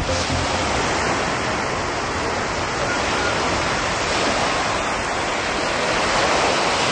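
Surf washing onto a sandy beach: a steady rush of breaking water.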